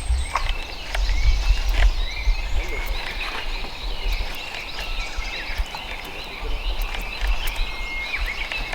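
A chorus of many small animal calls, short overlapping chirps running on throughout, with a low rumble underneath.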